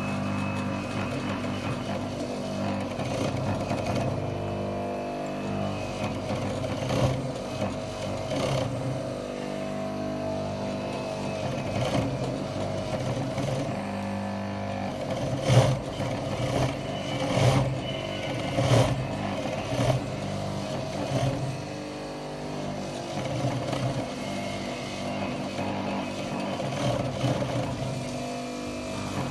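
Yamato industrial sewing machine running: a steady motor hum, with louder bursts of stitching as the fabric is fed through, most of them in the middle stretch.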